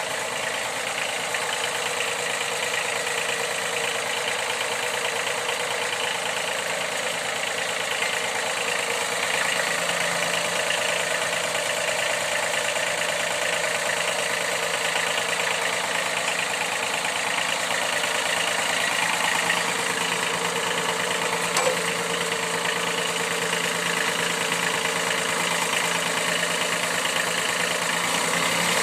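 Kubota engine of a riding lawn mower running steadily.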